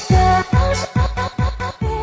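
Music with a choppy beat of low thumps under held tones.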